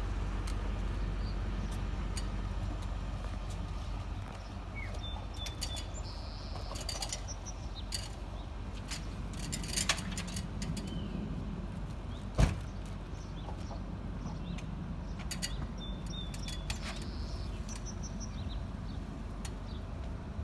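Outdoor ambience: a steady low rumble, a bird chirping the same short phrase twice, scattered faint clicks, and one sharp knock about twelve seconds in.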